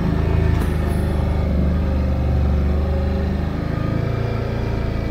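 Engine of a small off-road vehicle running at a steady pace while travelling along a snowy trail.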